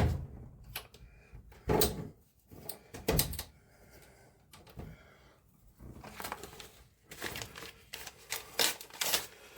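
Scattered clicks and knocks of plastic monitor parts being handled during disassembly, the loudest right at the start, with a quicker run of small clicks in the last few seconds.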